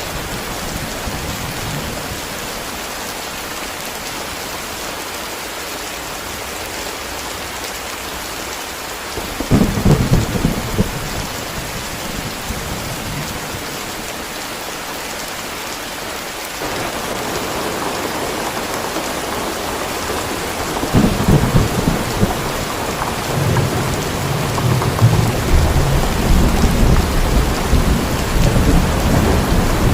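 Steady rain with thunder. A short roll of thunder comes about a third of the way in, the rain grows heavier a little past halfway, and long rolling thunder rumbles through the last third.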